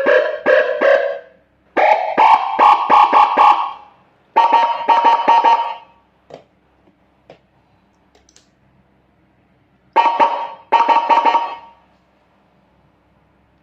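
Homemade double-tone siren module sounding through a white horn loudspeaker: four short bursts of a rapid pulsing electronic siren, the first lower and the later ones higher, with a gap of about four seconds before the last burst. A few faint clicks fall in the gap.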